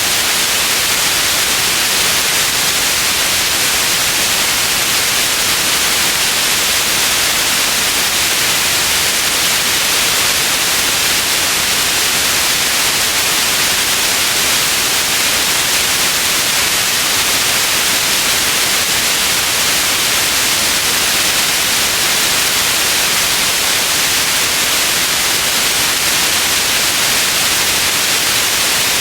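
Steady white noise: an even, unchanging hiss, strongest in the upper range.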